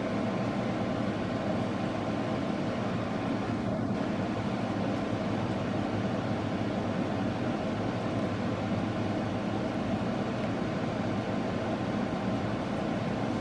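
A steady low hum of room background noise, even and unchanging throughout, like air conditioning running.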